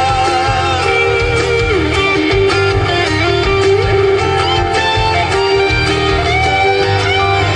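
Instrumental passage of a folk song: guitars playing under a held melody line.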